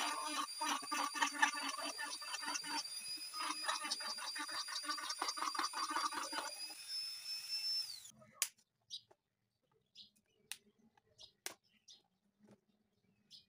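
Small rotary grinder's motor whining at a high, steady pitch as its bit cuts into the rim of a plastic lid, the cutting coming in quick pulses about four a second with a short break near the middle. About seven seconds in the cutting stops, the whine rises slightly as the load comes off, and the motor is switched off about a second later. Then near silence with a few light clicks.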